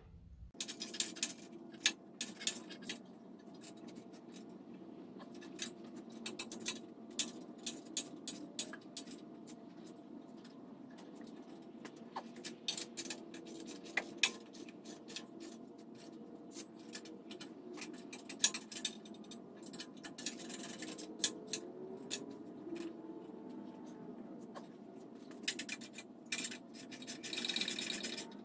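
Irregular metallic clicks and clinks of hand tools and bolts as the bumper bolts of a steel aftermarket front bumper are snugged and tightened, with a dense run of rapid clicks near the end. A steady low hum runs underneath.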